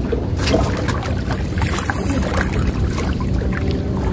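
Steady low drone of a boat engine running, with light hiss and scattered small clicks over it.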